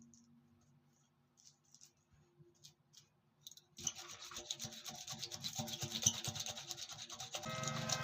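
Rasping and buffing of tyre rubber during a puncture repair, a fast rough scraping that starts about halfway through after near quiet and grows louder. A steady whine joins near the end.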